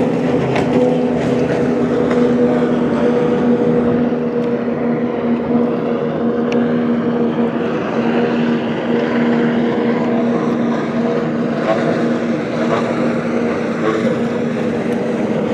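Racing outboard motor on a small powerboat running flat out at high speed, a steady drone that holds its pitch.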